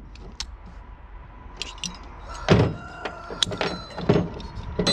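Steel chain and metal parts of dog-proof raccoon traps clinking and clanking as they are handled, with a louder clank about two and a half seconds in and several sharper clicks after it.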